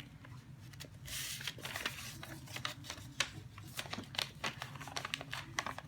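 Sheet of paper being folded and creased by hand, with crackling, rustling and short clicks as the folds are pressed down.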